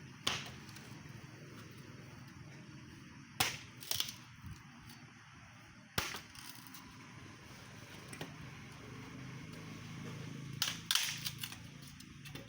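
Several sharp knocks or cracks at uneven intervals, about six in all, with two close pairs, over a low steady hum.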